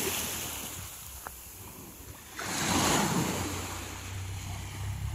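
Small waves lapping and washing up on a sand-and-pebble beach, with one louder wash coming in about halfway through. Wind rumbles on the microphone near the end.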